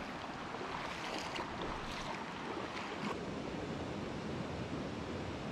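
Stream water flowing over rocks: a steady rushing noise.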